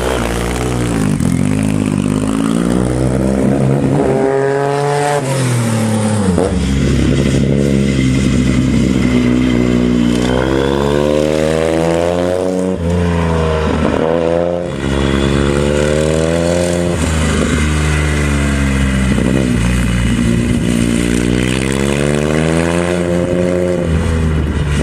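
Nembo 32 motorcycle's inverted three-cylinder 2-litre engine revving hard under way, its pitch climbing and dropping back again and again.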